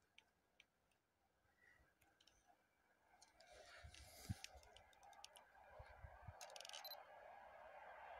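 Faint, steadily rising rumble of an approaching ER9M electric multiple-unit train, growing from about halfway in. Scattered light clicks and a few dull low thumps sound over it.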